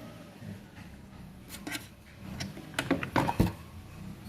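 A cluster of sharp clicks and knocks, loudest a little past the middle, as the removed electric radiator fan assembly, its blade loose on the motor shaft, is handled.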